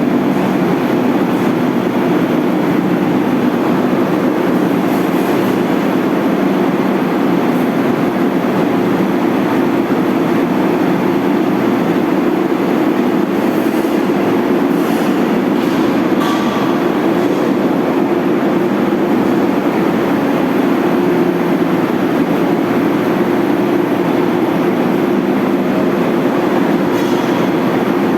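A motor running steadily with an unchanging, even hum.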